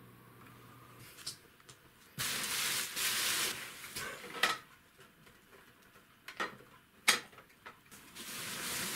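Shredded-paper packing and a cardboard box rustling while a terminal is handled and lifted out, in several spells of crackly rustle. A few sharp knocks come in between, the loudest about two-thirds of the way through.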